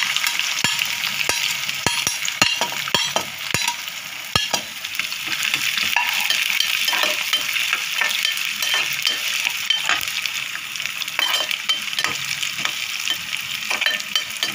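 Slivered almonds sizzling as they fry in hot ghee in a metal pot, the tempering for sheer kurma. A slotted metal spoon stirs them, with repeated clicks and scrapes against the pot, thickest in the first few seconds and again near the end.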